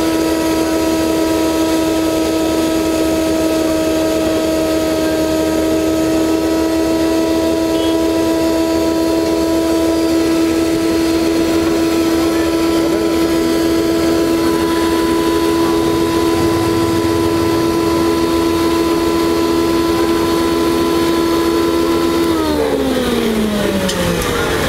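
Chhibber C-707 combined rice mill and masala grinder running steadily with a loud, even whine while its grinder pulverises coriander seeds into powder. About 22 seconds in its pitch falls steadily as the machine winds down.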